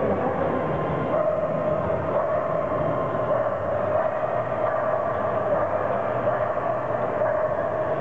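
Steady background din of a large exhibition hall at a dog show, a constant hum-like noise with dogs barking in the background.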